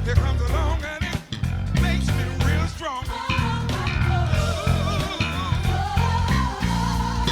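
Instrument sound demo: music with a prominent stepping bass line under a lead melody that glides and wavers with vibrato.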